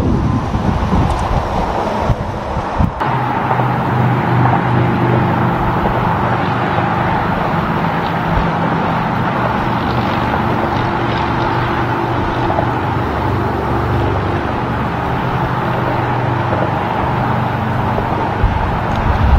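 A Freightliner Cascadia tractor-trailer passing on a highway: its diesel engine runs with a steady low hum over tyre and road noise. There is a short break about three seconds in, where the footage cuts from the previous truck.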